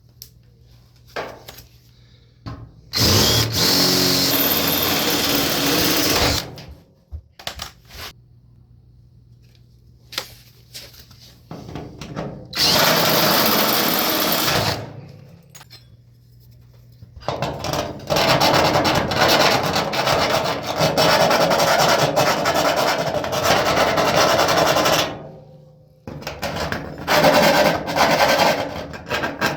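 Power drill running in four bursts of a few seconds each, the longest about eight seconds, drilling through the dryer's sheet-metal back panel.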